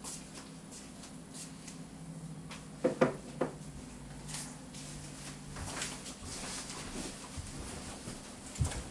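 Quiet room with a low steady hum and scattered light clicks, broken by a short cluster of loud knocks about three seconds in and another knock near the end.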